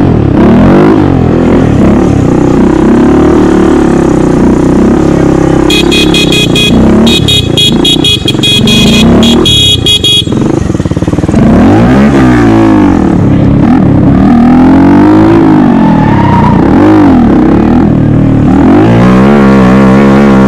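Motorcycle engine revving, its pitch rising and falling again and again as the bike is ridden. About six seconds in, a horn beeps in rapid pulses for about four seconds, and near the end the engine settles into a steadier note.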